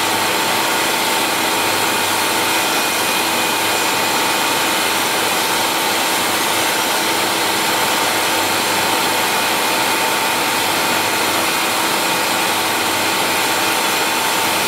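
Grinding wheel on a milling-machine spindle running against the face of an automatic transmission bell housing, flooded with emulsion coolant: a steady whirring grind with a constant high whine.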